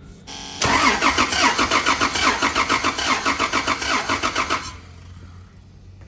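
Starter motor cranking a car engine that does not fire, because the ignition coil is unplugged for a compression test. It turns over for about four seconds with a fast, even pulse of compression strokes, then stops. The cylinder under test, number 2, reads a healthy 150 psi.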